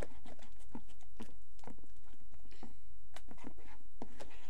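A spoon stirring slime that is just activating with liquid starch in a plastic bowl: a run of irregular sticky clicks and smacks.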